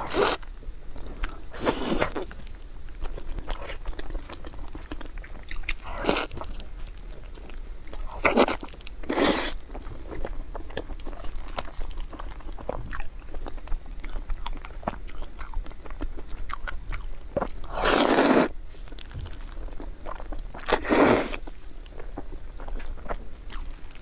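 Close-miked eating sounds: biting into a glazed grilled eel and taking in and chewing spicy noodles. A handful of loud, brief mouth noises stand out over quieter chewing, two of them longer, past the middle.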